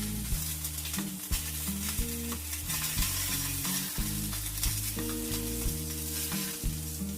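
Background music with a low bassline and a regular beat, over a steady crackling, sizzling hiss.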